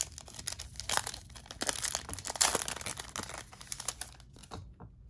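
A foil trading-card pack wrapper being torn open and crinkled in the hands, a dense rustling crackle that stops near the end.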